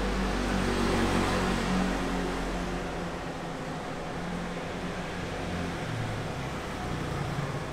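Road traffic: a vehicle's engine and tyres swell past over the first two seconds or so, then a steadier, lower traffic rumble continues.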